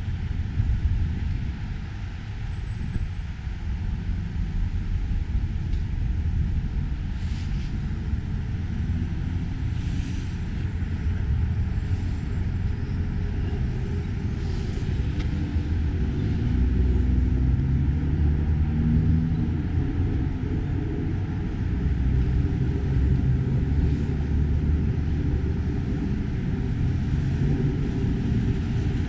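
City street traffic: a steady low rumble of cars driving past, with engine tones swelling and fading in the middle of the stretch.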